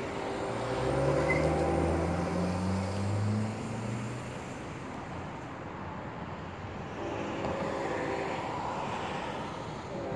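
Road traffic: a car accelerating past, its engine note rising over the first few seconds, then a quieter steady traffic hum.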